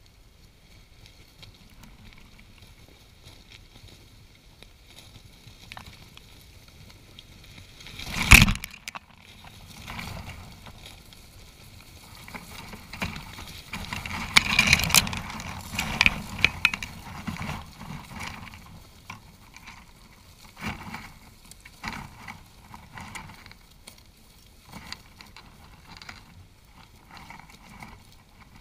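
Griffon vultures scrambling over a carcass right at the microphone: wings flapping, feathers brushing dry grass, and scuffling, with a single loud knock about eight seconds in. The busiest, loudest stretch of flapping and scuffling comes around the middle, then it settles into scattered rustles and knocks.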